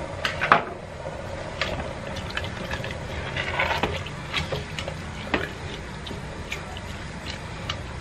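Wooden spoon stirring ground beef and diced vegetables in a metal pressure cooker pot, with scattered knocks and scrapes of the spoon against the pot and a sharper knock about half a second in. A steady low hum runs underneath.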